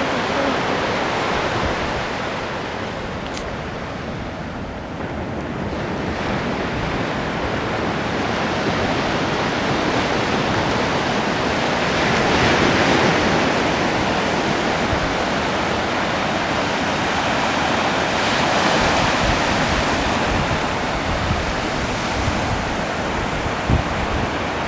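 Ocean waves breaking and washing up a beach: a steady rush of surf that swells louder about halfway through and again a few seconds later.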